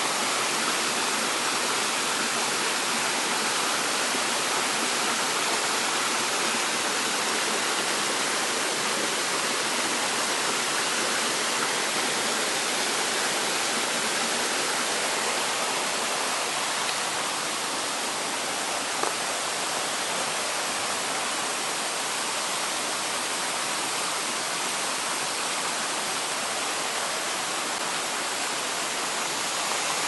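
Mountain stream rushing and splashing over mossy boulders in a small cascade, a steady sound of running water that drops a little in level a bit past halfway. One light click about two-thirds of the way through.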